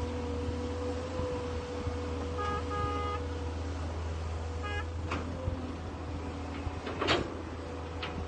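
Heavy-equipment diesel engine running steadily while an excavator loads dump trucks. A rapid string of beeps comes about two and a half seconds in, with a shorter one near five seconds, and a sharp knock about seven seconds in.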